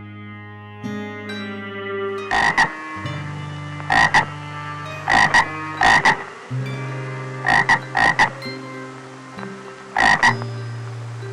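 Frog croaking: short doubled croaks, about seven of them, coming every one to two seconds over a steady low drone.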